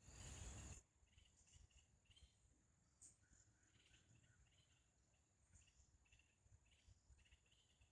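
Quiet forest ambience: a steady high insect trill, likely crickets, with faint short chirps scattered through it. A brief rush of noise fills the first second.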